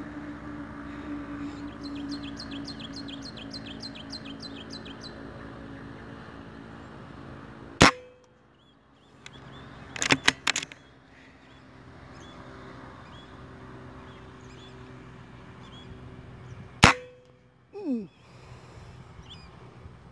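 Two rifle shots about nine seconds apart, each a sharp crack with a brief ring, fired at small birds in a field. Between them comes a quick cluster of sharp metallic clicks, and early on a small bird gives a rapid run of chirps, about four a second.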